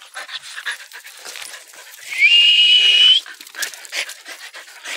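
Excited hunting dogs panting and scuffling close up, with one high-pitched whine about two seconds in that holds, rising slightly, for about a second.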